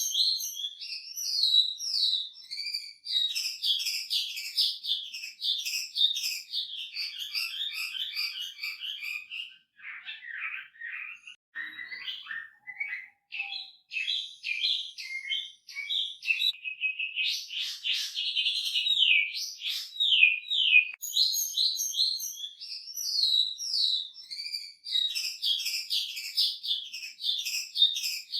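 Chinese hwamei singing continuously: a rapid, varied song of fast repeated sweeping whistled notes and phrases, rich in mimicked fill-ins. Around the middle the song drops lower and sparser, then runs into a fast even trill before the quick repeated phrases return.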